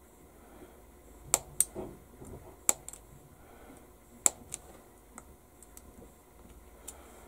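Sharp hobby blade clicking as it cuts through the attachment points of a photo-etch fret; a clean click is the sign of a sharp blade. Four loud clicks come between about one and four seconds in, then a few fainter ones.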